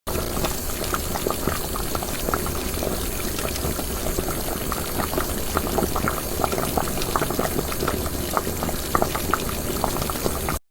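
Sound effect of liquid boiling: a constant bubbling hiss dotted with many small quick pops, starting and cutting off abruptly.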